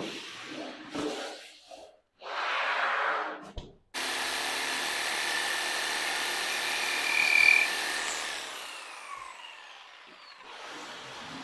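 A few short scraping, rubbing sounds, then a power tool motor starts abruptly about four seconds in and runs steadily for about four seconds. It is switched off and spins down with a falling whine.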